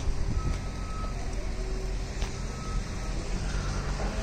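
A vehicle's reversing alarm beeping: a steady single-pitch beep about half a second long, repeating roughly every second and a half, over a low steady engine rumble.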